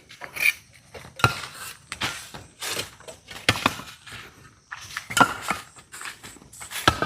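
Bricklaying work: a steel mason's trowel knocking and scraping on bricks and mortar, giving irregular sharp clinks and knocks, some with a brief metallic ring, spaced roughly half a second to a second and a half apart.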